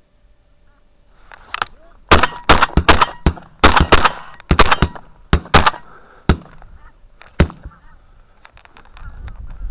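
A flock of geese honking overhead while a rapid volley of shotgun shots goes off, about a dozen sharp loud bangs in quick succession from about two seconds in, ending near the last third; fainter goose calls carry on afterwards.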